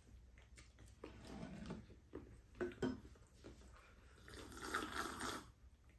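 Faint sipping and slurping of a drink from a mug, about four seconds in, after a few light clinks of spoons against ceramic bowls.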